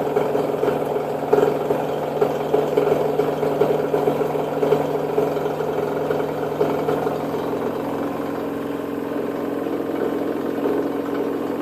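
Washer-dryer running in its spin cycle: a steady mechanical hum with uneven rattling peaks through the first half that settle to a steadier drone. The noise is abnormal, and the owner does not know its cause.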